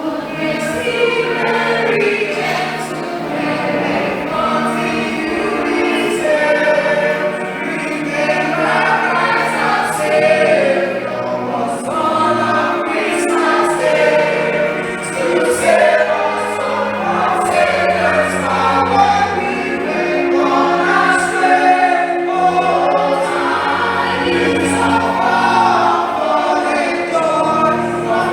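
A church choir singing a Christmas carol with musical accompaniment, continuing without a break.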